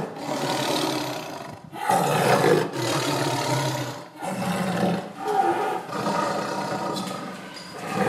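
Lion roaring: a string of deep roars broken by short pauses.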